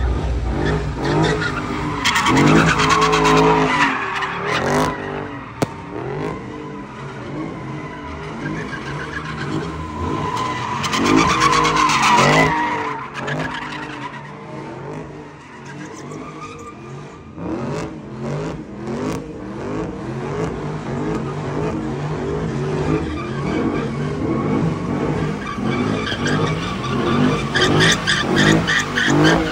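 A car spinning donuts: its engine revs hard and drops back again and again while the tyres squeal. The squeal swells loudest a few seconds in, again about ten seconds in, and near the end.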